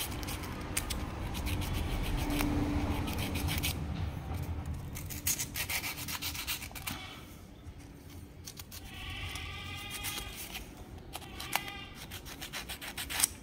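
Emery sheet rubbed rapidly back and forth over the electrode end of a motorcycle spark plug, a dry scraping of many quick strokes, scouring blackened deposits off the plug. The rubbing is louder in the first half and softer after about seven seconds.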